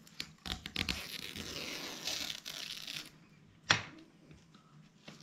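Double-sided tape being peeled off the bottom track of a pleated caravan blind: a tearing rip lasting about three seconds, then a single sharp click.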